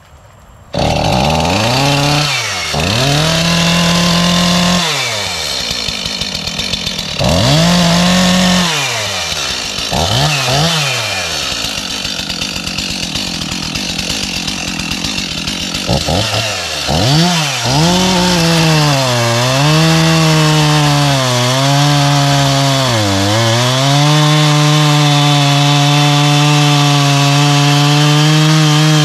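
Stihl chainsaw firing up about a second in after being hard to start. It is revved up and down in repeated swings, its pitch dipping and climbing back, then holds steady at high revs for the last few seconds.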